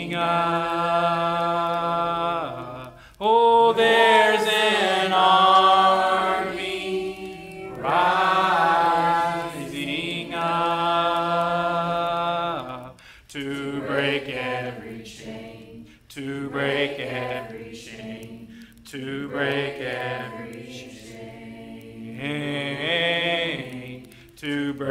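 Singing of a slow worship song, the voices holding long drawn-out notes for several seconds at a time and then moving into shorter phrases with brief gaps after about thirteen seconds.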